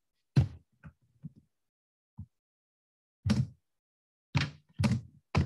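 Computer keyboard keystrokes: a few scattered taps with silence between, as a line of code is typed.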